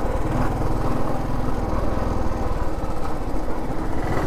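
Motorcycle engine running steadily under way, a fast, even run of firing pulses.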